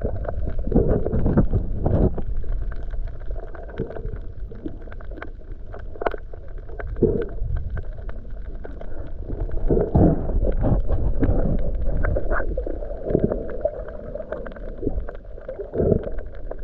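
Muffled underwater sound from a submerged camera: sloshing and gurgling water with irregular dull thumps and swishes, all the high sounds cut off.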